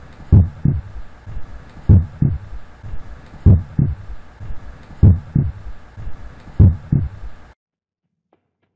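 Heartbeat sound effect: slow double thumps, one pair about every second and a half, over a steady hum, cutting off suddenly near the end.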